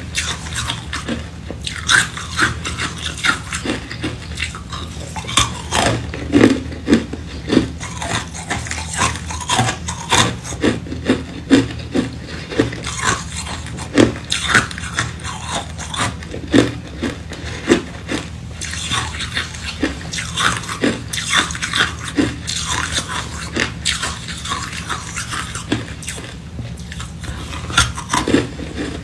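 Close-miked chewing of hard ice cubes: irregular sharp crunches and cracks a couple of times a second as the ice is bitten and ground between the teeth, over a steady low hum.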